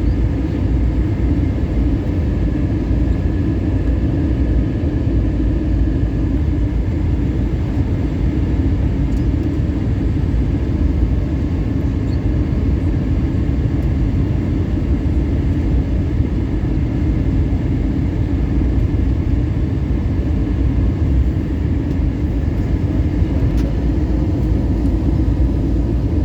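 Steady, unbroken rumble of an Airbus A321 airliner in flight, engine and airflow noise heavy in the low end, with faint steady hums above it.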